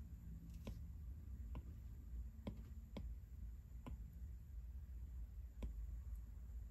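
Half a dozen light, sharp taps at irregular intervals: a stylus tapping on a tablet's glass screen.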